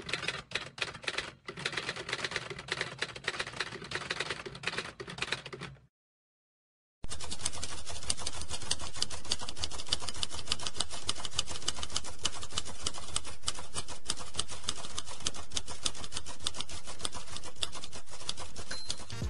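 Typewriter keys clacking as a sound effect for text being typed: irregular keystrokes for about six seconds, a pause of about a second, then a long run of fast, even keystrokes.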